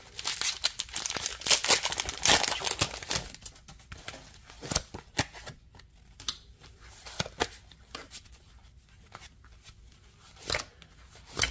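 Foil booster-pack wrapper being torn open and crinkled, densest over the first few seconds. It is followed by quieter rustling of the wrapper and the trading cards being handled, with a couple of sharper clicks near the end.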